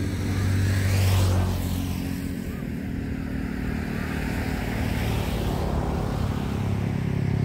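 Motor traffic: a steady engine hum, with a vehicle sweeping past about a second in.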